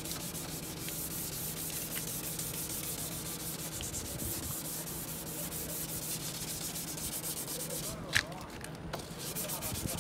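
Hand wet-sanding of a car's plastic headlight lens with 600-grit sandpaper: steady scratchy rubbing strokes. About eight seconds in there is a sharp tap and a short break before the rubbing resumes.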